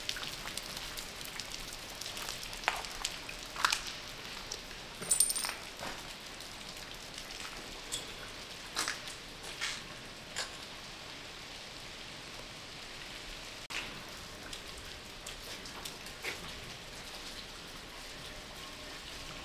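Footsteps crunching on gravel and broken debris, scattered irregular crunches and clicks over a steady hiss, the loudest about five seconds in.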